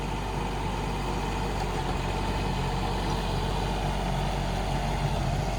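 Kubota K008-3 mini excavator's small three-cylinder diesel running steadily while the machine is driven on its rubber tracks.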